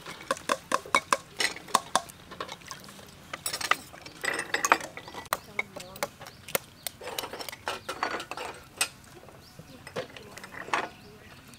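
Boiled duck eggs and utensils tapping and clinking against a steel bowl and small ceramic dishes: many sharp, irregular clicks.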